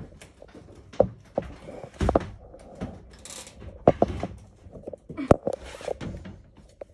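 Irregular knocks and thumps, roughly two a second, with one sharp knock near the middle.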